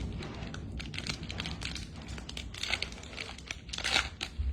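Plastic trading-card pack wrappers crinkling and tearing as a blaster box's packs are opened, a run of irregular crackles and rustles with a louder rip about four seconds in.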